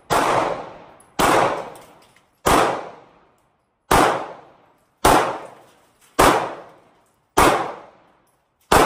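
Handgun fired eight times at a steady pace, about one shot every second and a bit. Each sharp crack is followed by a short echo that dies away before the next shot.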